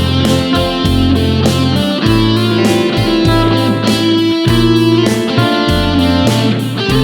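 Background music: a guitar-driven song with bass and a steady beat.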